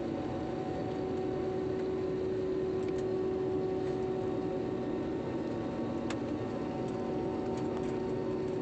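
Steady jet engine drone heard inside an airliner cabin, with a few steady hum tones over the rushing noise, as the plane takes off and climbs. A couple of faint clicks.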